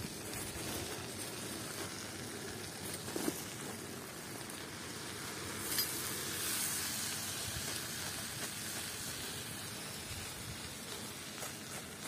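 Food sizzling over a wood fire's embers, a steady hiss with a few sharp pops and crackles, the loudest about six seconds in.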